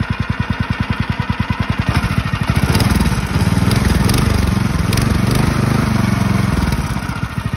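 Champion small single-cylinder gas engine of a homemade longtail mud motor running: an even idle, revved up about two and a half seconds in for a few seconds with the pitch rising and falling, then settling back to idle near the end.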